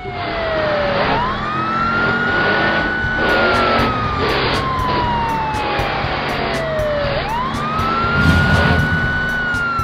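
Police car siren wailing in slow sweeps. Each sweep rises quickly, holds, then falls slowly over several seconds, and there are two full sweeps.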